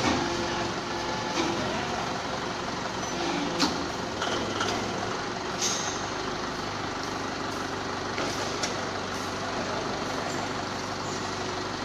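Steady running of workshop machinery, a forklift engine together with the hydraulic press's pump unit, with a low hum that shifts about halfway through and a few short clicks and knocks.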